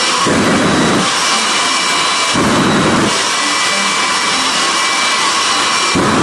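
Jet engine of a jet-powered school-bus dragster running with a loud steady roar and a high whistling whine, the roar swelling deeper three times.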